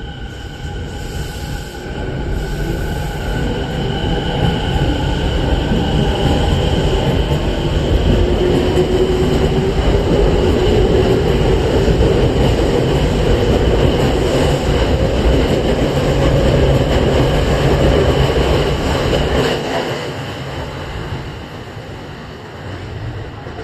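Tokyo Waterfront Area Rapid Transit 70-000 series electric train pulling away from the station. Its traction motors give a whine that rises slowly in pitch as it accelerates, over a heavy wheel-and-rail rumble. The sound grows loud as the cars pass, then drops off suddenly about four-fifths of the way through.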